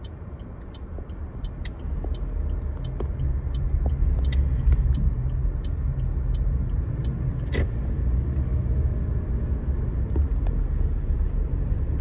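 Car driving, heard from inside the cabin: a low road-and-engine rumble that grows louder as the car picks up speed about two to four seconds in, then holds steady. A few faint light ticks and clicks are heard over it.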